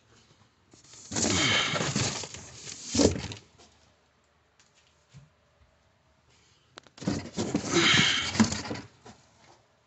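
Cardboard boxes being handled: two bouts of scraping and rustling, each a couple of seconds long, with a sharp knock at the end of each.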